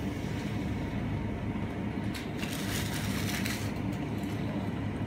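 Steady low hum of a grocery store's freezer case, with a rustle of frozen goods in plastic bags being handled from about two to three and a half seconds in.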